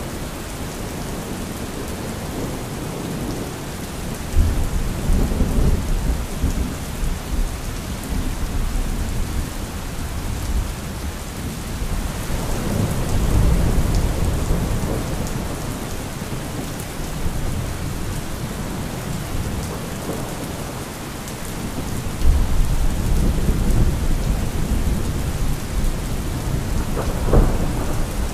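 Thunderstorm: steady rain with rolling thunder that swells three times, and a sharper thunder crack near the end.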